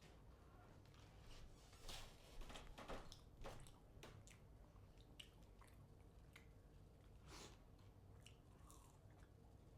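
A person chewing and biting food close to the microphone: faint wet mouth sounds with scattered sharp clicks, loudest about two to three and a half seconds in.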